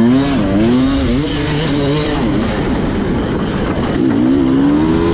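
Two-stroke enduro motorcycle engine revving up and down again and again, the pitch climbing and dropping in quick blips with a steadier stretch in the middle, as the throttle is worked over rough ground.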